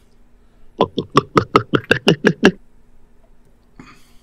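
A man's voice in a quick run of about ten short bursts, roughly six a second, lasting under two seconds, starting about a second in.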